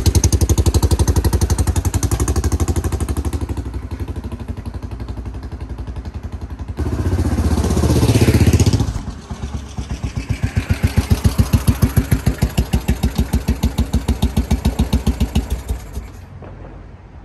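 1961 Royal Enfield Bullet 350's single-cylinder four-stroke engine running with an even, steady thump. About eight seconds in, the bike comes past close by, loud with a rising-then-falling pitch. It then idles with regular thumps until the engine sound stops about sixteen seconds in.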